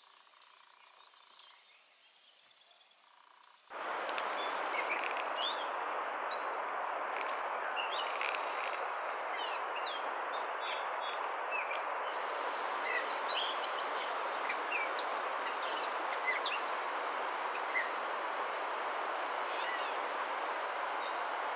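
Many birds chirping: short, scattered chirps and quick whistles over a steady rushing background noise, which cuts in abruptly about four seconds in after near quiet.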